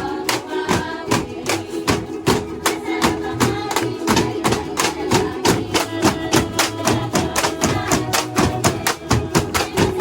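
Filipino folk-dance music with bamboo poles clacking together in a steady beat, about four strikes a second, in a tinikling-style dance.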